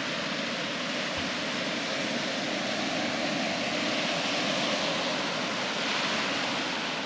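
Ocean surf washing against the shoreline: a steady rush of breaking water that swells a little around the middle.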